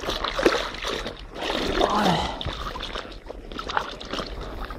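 Water splashing and sloshing as a large sea trout is handled in a landing net.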